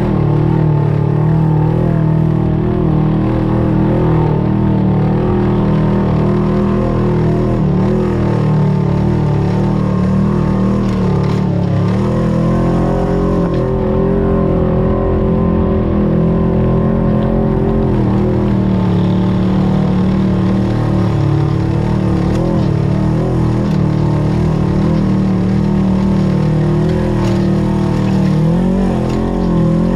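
Off-road vehicle engine running steadily at low speed, its pitch rising and falling a little as the throttle changes.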